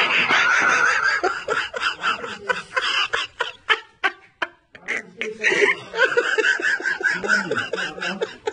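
People laughing hard in a run of short bursts, loudest in the first second or so.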